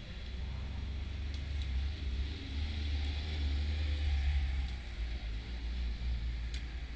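Engines of Seven-type open sports cars running as the cars drive slowly past one after another, with a low rumble that swells loudest about four seconds in as one passes close.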